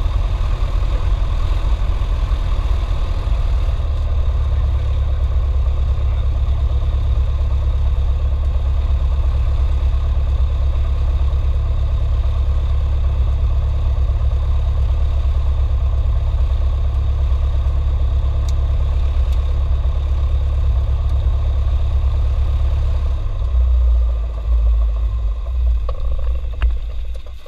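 Cessna 172's piston engine idling steadily, heard from inside the cockpit. Near the end it runs unevenly for a few seconds and then cuts out as the engine is shut down.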